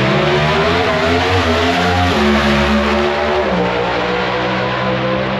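Pro Stock drag racing cars' naturally aspirated V8 engines at full throttle on a run. The engine note shifts abruptly about two seconds in and again about three and a half seconds in.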